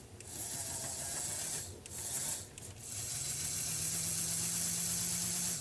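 Open-frame electric motor of a brass HO scale electric locomotive, run on test leads, whirring as it drives a belt-and-worm-gear drive freshly packed with grease and oil, to work the grease through the gears. It runs briefly twice, then runs steadily from about three seconds in, with a steady hum added.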